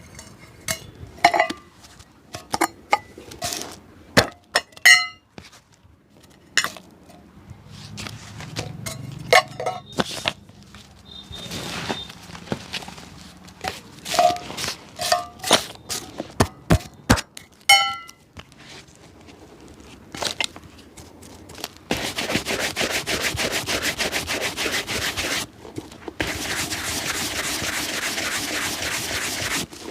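Shoe-shine work on a shoe: scattered clicks, taps and small metallic clinks as tools are handled, then, about two-thirds of the way in, fast steady brushing strokes on the shoe, broken once by a short pause.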